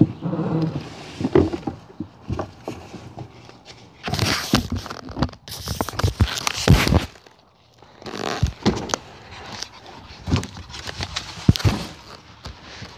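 Handling noise of a hand-held camera being moved about: irregular rustles, scrapes and bumps, with a brief lull a little past halfway.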